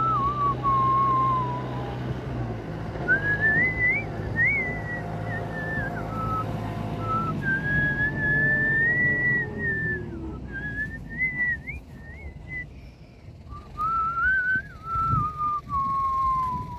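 A person whistling a slow, wandering tune, sliding between held notes with short breaks, pausing around ten and thirteen seconds in. Under the first half a low steady hum fades away.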